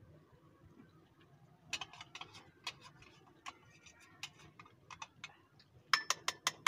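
A metal spoon clicking and scraping against a small bowl in irregular taps while coloured yogurt is spooned over rice in the pot. Near the end comes a quick run of louder, ringing taps as the last of the bowl is knocked out.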